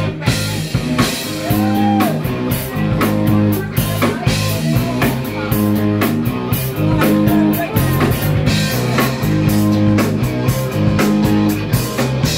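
Live rock band playing in a bar: electric guitars and a drum kit keeping a steady beat, with a woman singing into a microphone.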